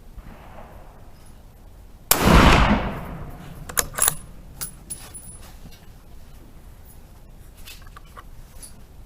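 A single rifle shot about two seconds in, ringing off over about a second. It is followed by a couple of short, sharp clicks.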